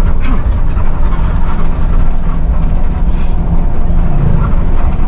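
Intercity bus under way, heard from the driver's cab: steady, loud engine drone and road rumble, with a short hiss about three seconds in.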